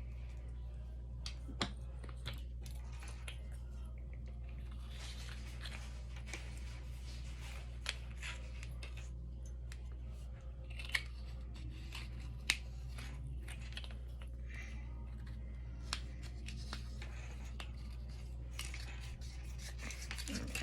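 Scissors snipping and scraping at the thin clear plastic film over a flashlight battery, with rustling as the film comes away and scattered sharp clicks of handling, over a steady low hum.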